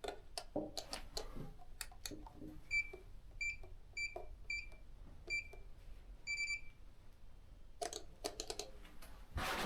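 Faint electronic alarm beeping: about seven short, high beeps a little over half a second apart, starting about three seconds in. Scattered faint clicks and knocks are heard throughout.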